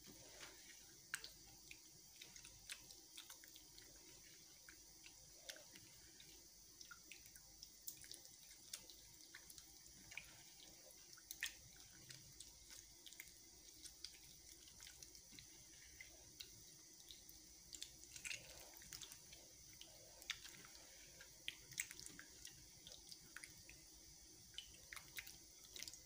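A hand squeezing whole tomatoes into tamarind water in a steel bowl gives faint, irregular wet squelches and drips.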